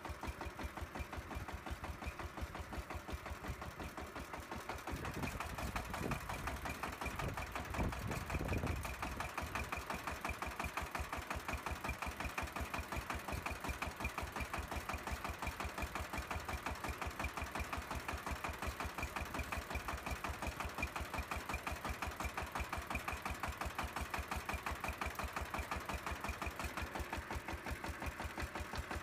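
Small motor of a model machine running steadily with a rapid, even knock of about four or five beats a second and a faint whine. A low rumble comes through about five to nine seconds in.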